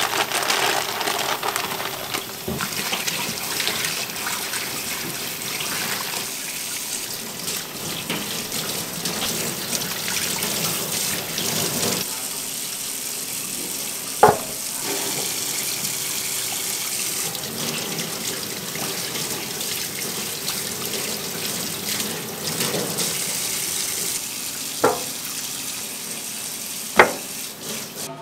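Kitchen tap running into a stainless steel bowl of water while raw chicken bones are rinsed by hand. A few sharp metallic knocks, once about halfway and twice near the end, as pieces go into a stainless steel pan.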